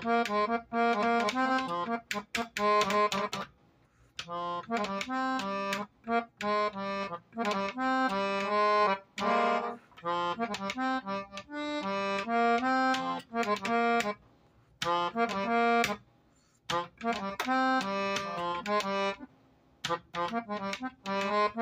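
Accordion playing short, halting phrases of chords that stop and start, with clicking between the phrases.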